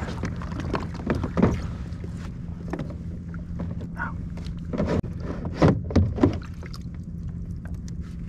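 Gear being handled in a plastic pedal-drive kayak's drive well, giving several knocks and thumps, loudest in a cluster about two thirds of the way through. Under them is a steady low rumble of wind and water.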